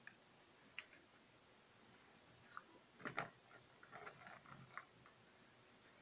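Near silence, with faint scattered clicks and light crackling. The clicks cluster about three seconds in.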